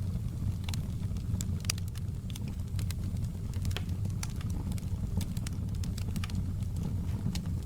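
Wood fire in a fireplace crackling, with sharp pops every fraction of a second at irregular intervals over a steady low rumble of the flames.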